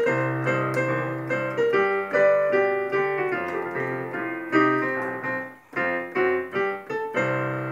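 Digital keyboard on a piano sound playing a blues/boogie-woogie improvisation with a busy left-hand bass line and right-hand chords. About five and a half seconds in it breaks off briefly, then plays a few short chords and ends on a held chord that fades.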